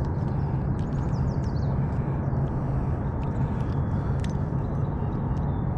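Steady low hum of distant road traffic, with a bird's quick run of about six falling high chirps about a second in and a few faint clicks.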